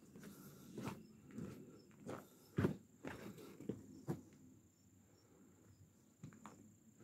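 Footsteps on wooden decking, about two steps a second for the first four seconds, then only an occasional step.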